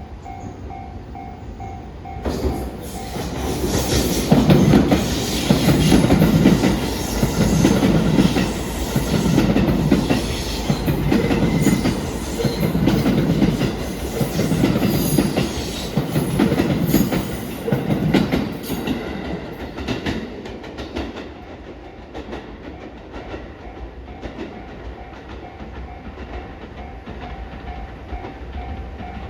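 JR West 223 series electric train passing over a level crossing: a clatter of wheels over the rail joints that pulses about every two seconds as each car goes by, dying away after about twenty seconds. A level-crossing warning bell rings steadily, standing out before the train arrives and again after it has gone.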